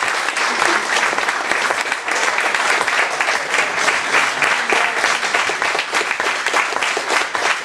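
Audience applauding steadily: many hands clapping at once, a dense even patter.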